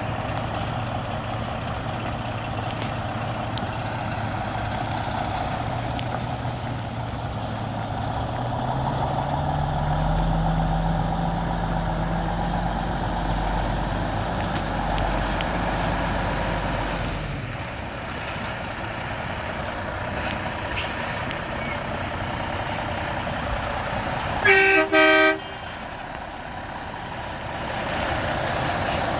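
Freightliner Coronado truck tractor's diesel engine idling. Its speed rises about a third of the way in, holds higher for several seconds, then drops back. Near the end a vehicle horn sounds once, loud, for about a second.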